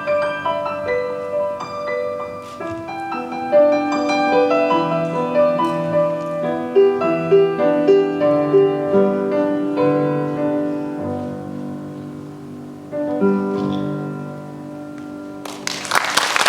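Solo piano playing a slow, gentle piece that ends on a final held chord, followed near the end by audience applause.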